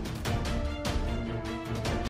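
Background music: sustained tones over drum hits that recur about every half second.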